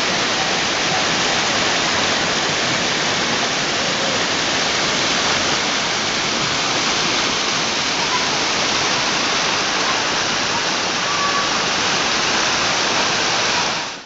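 Shallow mountain stream rushing and splashing over rocks, a steady loud rush of water.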